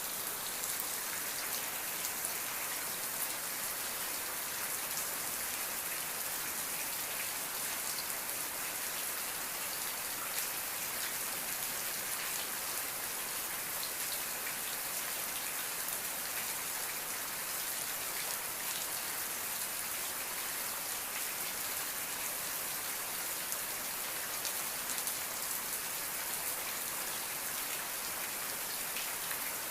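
Steady rain falling, a continuous even hiss dense with fine droplet patter on a surface.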